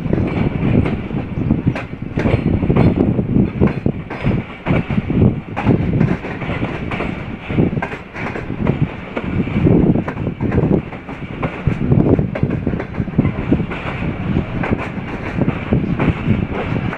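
Passenger train rolling along a station platform, heard from on board: a steady rumble of wheels on the rails with many irregular clacks.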